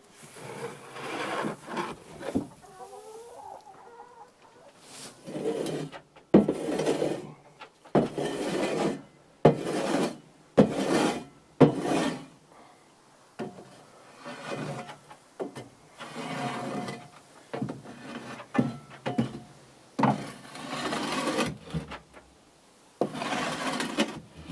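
A shovel scraping old bedding and droppings off the chicken coop floor in about a dozen strokes, each starting with a sharp scrape of the blade. Chickens cluck.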